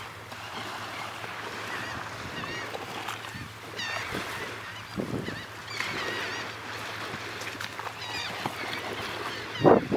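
Water birds in a feeding flock of pelicans and gulls calling in many short, high squawks over a steady wash of wind and water noise. A loud thump comes near the end.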